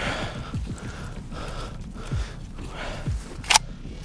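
A mud-caked AKM's action being worked by hand to clear a stuck case, with a sharp metallic clack about three and a half seconds in.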